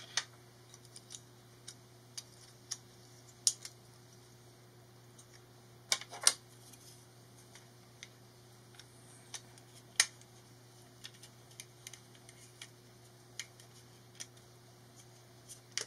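Scattered small clicks and taps from handling a plastic garage door remote while its CR2032 coin cell is swapped and the case is pressed back together, the sharpest clicks about 6 and 10 seconds in. A faint steady hum runs underneath.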